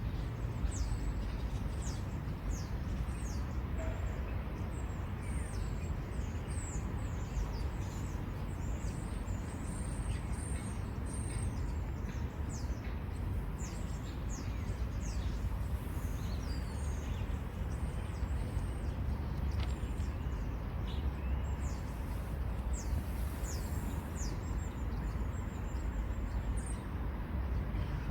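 Small birds calling outdoors: many short, high chirps scattered throughout, over a steady low rumble.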